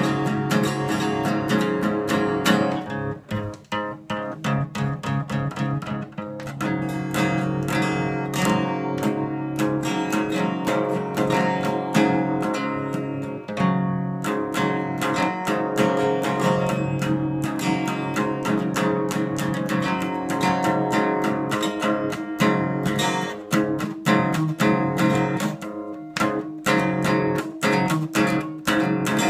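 Acoustic guitar strummed with quick, even strokes, a steady run of chords that dips briefly about three seconds in.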